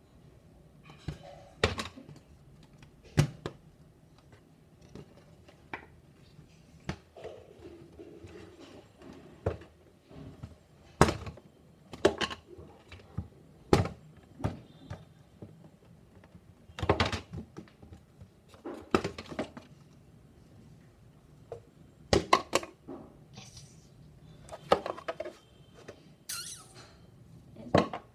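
Die-cut cardboard board-game pieces being pressed and snapped out of a punchboard by hand. Many irregular sharp snaps and thunks, a couple of dozen, with short quiet gaps between them.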